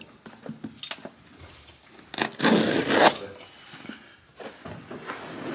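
Carpet being handled and folded back by hand: scattered light clicks and clinks, then a loud rustling scrape of carpet about two seconds in that lasts about a second.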